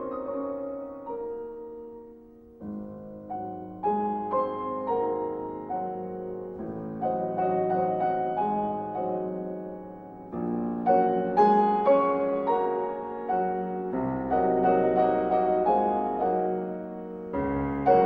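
Background piano music: sustained chords with new notes struck every second or so, dipping quieter about two seconds in and then building again.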